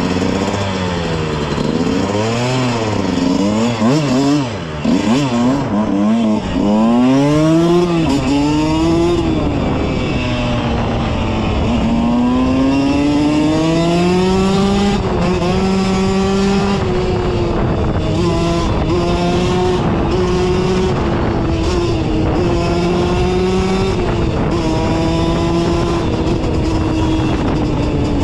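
Dirt bike engine heard from the bike itself, revved up and down quickly several times, then pulling away and running at a fairly steady pitch with small rises and falls as it rides along.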